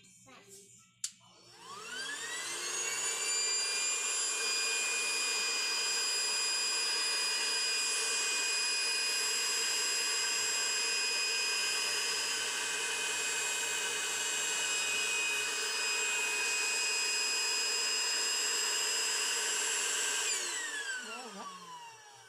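Electric air pump switched on with a click about a second in, spinning up to a steady high whine as it inflates the pool. It runs for about sixteen seconds, then is switched off and winds down with a falling whine near the end.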